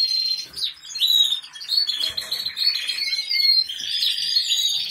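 Many small caged songbirds chirping and trilling at once, with short rising and falling calls overlapping without a break.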